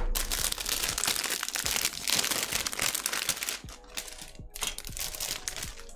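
Clear plastic bag of model-kit runners crinkling as it is handled, in a long spell and then a shorter one about four and a half seconds in.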